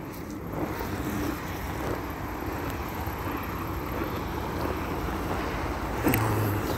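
Outdoor traffic ambience: a steady rumble of wind on the microphone and distant road traffic, with a short knock about six seconds in.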